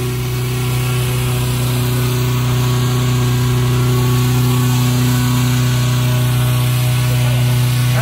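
Petrol-engine inflator fan running steadily, blowing cold air into a hot air balloon envelope laid out on the ground: the cold-inflation stage before the burner is lit.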